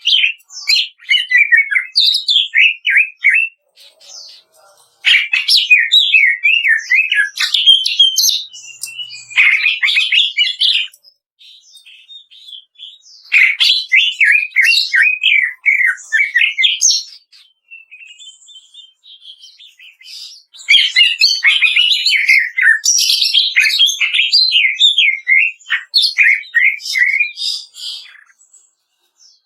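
Cucak ijo (green leafbird) singing in loud bursts of fast, crackling chatter, the 'kretekan' of this song, each phrase a few seconds long with short pauses and softer notes between.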